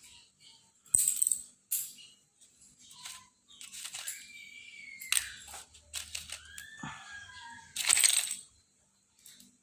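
Sharp clicks and scraping of a hand fiber stripper working on a fiber-optic cable's coating, the loudest click about eight seconds in. High whistled glides sound in the background between about four and eight seconds in.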